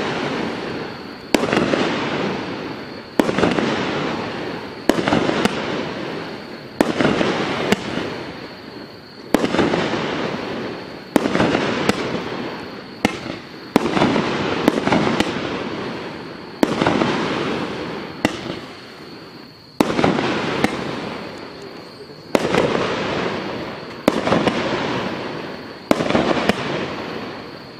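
A 30 mm, 25-shot consumer firework cake firing one shot about every one and a half to two seconds. Each shot is a sharp bang followed by a hiss that fades over a second or so.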